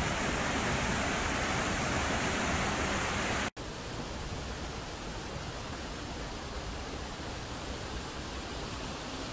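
Water rushing over boulders in a small river cascade: a steady noise. About three and a half seconds in it cuts out for an instant and comes back quieter and duller as a gentler stream.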